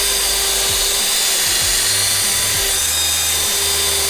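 Drill spinning a wire cup brush against the head of a pit-bike engine valve, scrubbing carbon deposits off the metal to ready it for lapping. Steady whirring with a gritty scraping.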